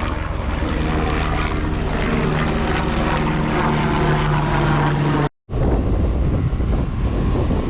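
Propeller engine droning steadily at one pitch. It breaks off abruptly about five seconds in and gives way to a rougher, noisier rumble.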